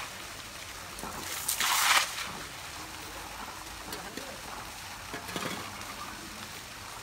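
A short splash of water, about half a second long, about one and a half seconds in, from an Asian elephant bathing in a shallow pool, then softer sloshing of water.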